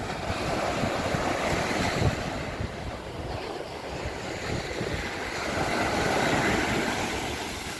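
Sea surf washing onto a beach, the noise of the waves swelling twice and falling away, with wind buffeting the microphone.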